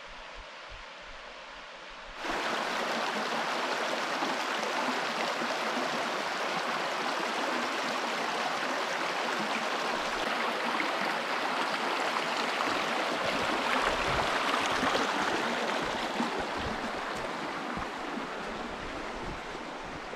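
Steady rush of running water, like a stream or rapids, cutting in abruptly about two seconds in after a faint hiss.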